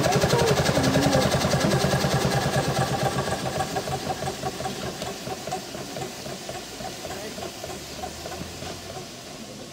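An engine running with a fast, steady beat, growing steadily fainter from about three seconds in.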